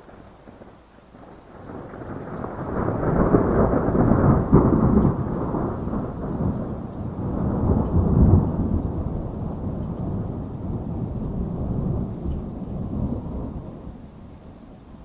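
A long roll of thunder over steady rain. The rumble builds over the first couple of seconds, peaks twice, then fades out near the end.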